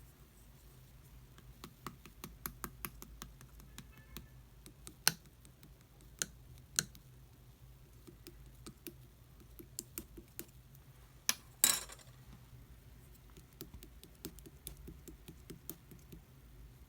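Hands pressing and stretching slime, giving scattered small clicking pops as air pockets burst, with a louder crackling cluster about two-thirds of the way through.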